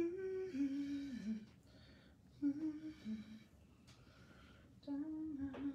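A woman humming a tune to herself in three short phrases of held, stepping notes, with a brief click near the end.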